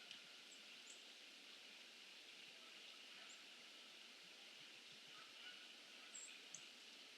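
Faint outdoor ambience with a steady hiss and a few brief, high-pitched bird chirps scattered through it, the loudest pair near the end.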